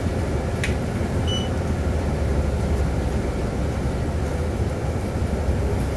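Bus engine and running gear droning low and steady inside the cabin as the bus rolls slowly. A short high beep sounds about a second in.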